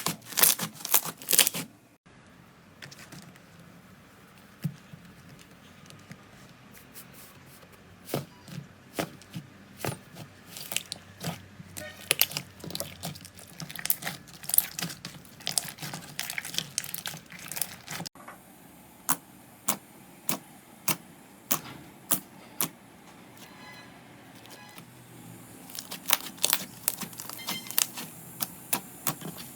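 Slime being squeezed, poked and stretched by hand, making crisp sticky clicks and crackles, in several short clips spliced together. The clicks are dense at the start and near the end, and sparser in between.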